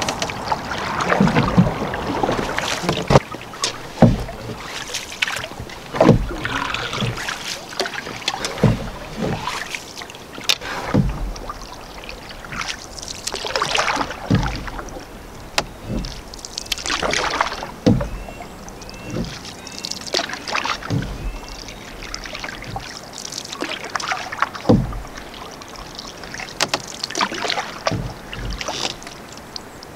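Canoe being paddled: the paddle swishes and splashes through the water every few seconds, with sharp knocks in between.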